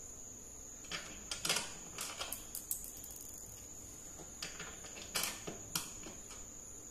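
Hands fitting a TV stand's neck to its plastic-wrapped base and setting its screws: small clicks and plastic-wrap rustles in two clusters, about a second in and again about four to six seconds in, over a steady high-pitched whine.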